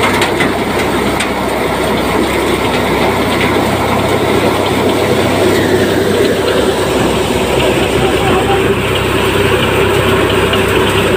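A tractor-powered threshing machine running steadily at full work, threshing pigeon pea: a loud, continuous churning of the spinning drum, belts and sieves, with the Eicher 548 tractor's diesel engine droning underneath as it drives the thresher.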